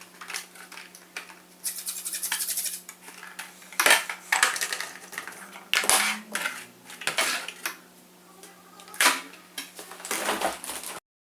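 Small hard plastic and metal parts being handled during assembly, in irregular clicks, clacks and short scrapes over a faint steady hum. The sound cuts off suddenly near the end.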